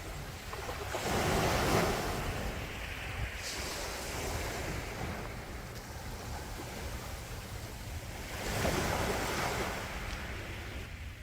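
Gentle sea waves washing ashore, two waves breaking and rushing in, one about two seconds in and another near nine seconds, over a low steady rumble of surf, with some wind on the microphone.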